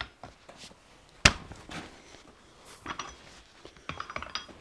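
Metal clanks and scrapes of blacksmith's tongs and a red-hot steel coil spring against the anvil as the coil is levered and unrolled in the hardy hole. One sharp clank about a second in is the loudest, with lighter clinks and scraping near the end.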